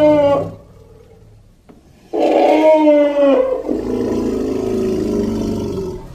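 Creature roar sound effect for a made-up dinosaur: the end of one roar, a short pause, then a long roar about two seconds in whose pitch falls, trailing off into a lower growl that fades near the end.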